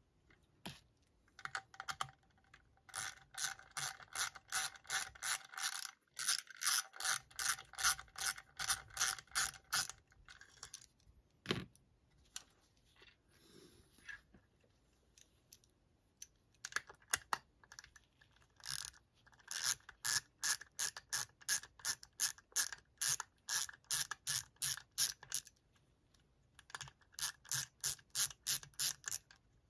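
Small hand ratchet clicking in runs of about three clicks a second as it backs out the through-bolts of a Ford alternator's case, pausing between stretches. A single knock comes about halfway through.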